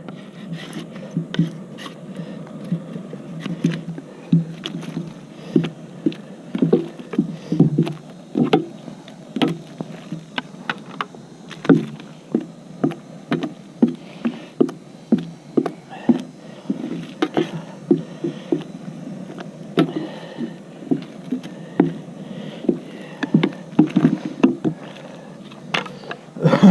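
Liquid splashing and sloshing as hive equipment is worked in a tub of hot liquid to kill small hive beetle larvae, with irregular short splashes and knocks every second or so over a steady low wash.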